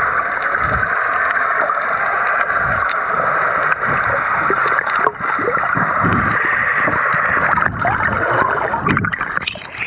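Underwater sound from a camera held below the sea surface: a steady rush of water with gurgles, low swishes as the camera moves and scattered small clicks.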